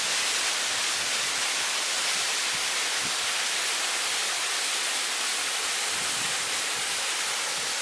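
Waterfall: falling water rushing in a steady hiss, with little deep rumble.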